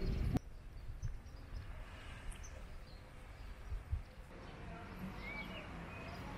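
Faint outdoor background noise with small birds chirping now and then, the chirps coming more often near the end; a louder low rumble cuts off suddenly about half a second in.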